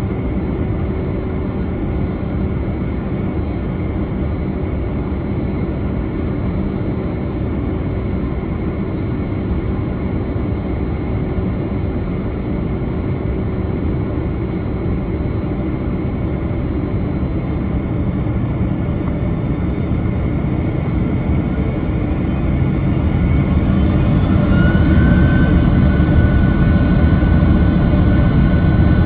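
Boeing 767-300ER's twin General Electric CF6 turbofan engines heard from inside the passenger cabin, a steady idling hum while the jet lines up on the runway. A little over twenty seconds in the sound grows louder and a rising whine comes in as the engines spool up toward takeoff thrust.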